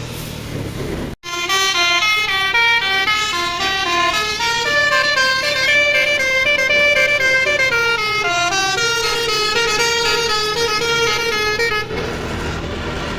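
A bus's telolet horn, a multi-tone Basuri-type musical air horn, plays a long, continuous melody of quick notes stepping up and down. It starts abruptly about a second in and cuts off near the end, leaving the rumble of the bus and wind.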